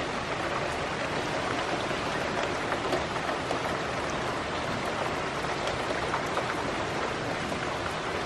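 Steady rain falling on a garden: an even hiss of rain with scattered drop ticks.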